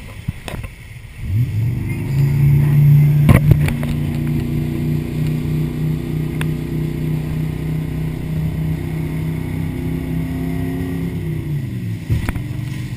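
Motorboat engine opening up about a second in, running at steady speed, then throttling back near the end. A few sharp knocks come through, two of them about three seconds in.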